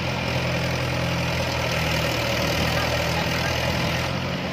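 Diesel engines of a Massey Ferguson 7250 DI and a Mahindra 575 DI tractor running steadily, working to pull the Mahindra out of the mud.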